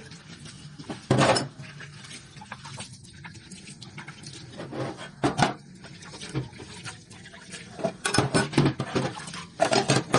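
Wet steel Honda CG125 frame parts and brackets clinking and clattering against each other as they are picked up and moved by hand. A few knocks come near the start and in the middle, and there is a busier run of clatter over the last couple of seconds.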